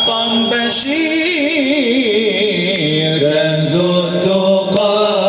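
A man's voice singing an Arabic nasheed in a wavering, ornamented melismatic line over a steady held drone.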